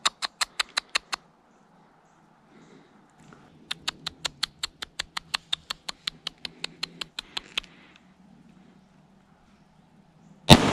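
Squirrel giving its alarm bark, a quick string of sharp chucks at about five or six a second in two runs. About ten seconds in comes a single shot from a .22 LR 1911 pistol, the loudest sound, echoing through the woods.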